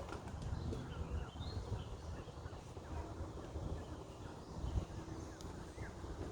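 Wind rumbling on the microphone, with a few faint birds calling in short chirps, the clearest about a second and a half in.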